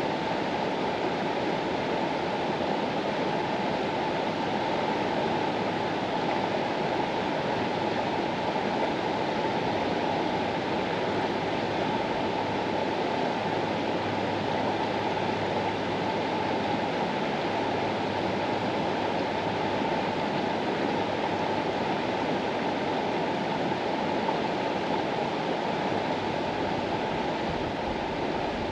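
The Mastallone river's water rushing steadily: an even, unbroken rush that is fullest in the lower-middle tones.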